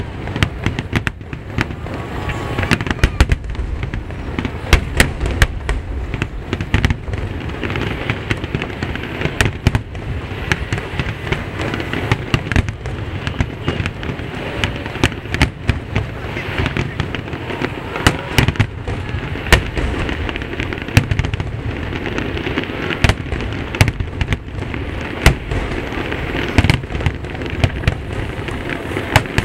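Fireworks finale: many aerial shells bursting in quick succession, a continuous barrage of booms and sharp bangs.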